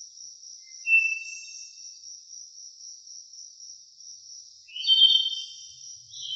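Forest ambience: a steady, high insect trill throughout, with a bird calling twice, a thin whistle about a second in and a louder call near five seconds.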